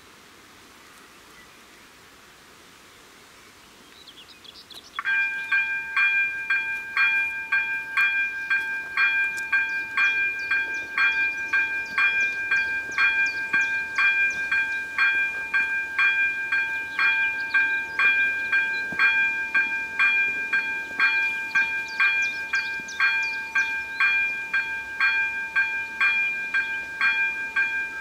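ZV-01 electronic level-crossing bell starts about five seconds in and rings with an even, repeated ding, about two strikes a second, signalling that a train is approaching and the crossing is closed.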